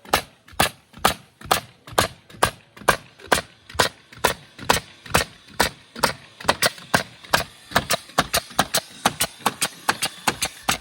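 Repeated hammer strikes, about two a second at first and quickening to three or four a second near the end, then stopping abruptly.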